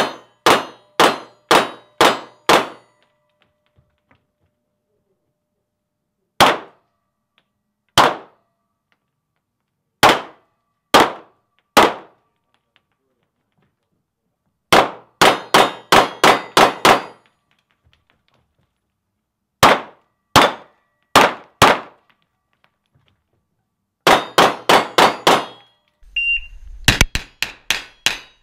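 Glock pistol shots echoing in an indoor concrete range, fired in fast strings of about five to eight shots with a few single shots between. A short high beep, typical of a shot timer's start signal, comes just before the last string near the end.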